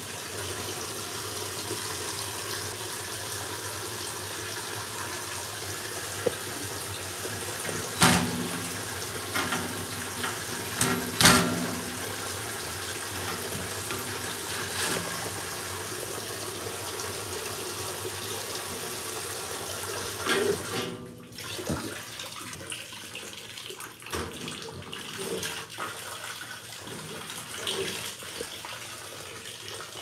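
Water rushing into a GE washing machine as it fills, a steady rush, with a couple of sharp knocks about eight and eleven seconds in. About two-thirds of the way through the rush dips sharply, then goes on more quietly with small knocks.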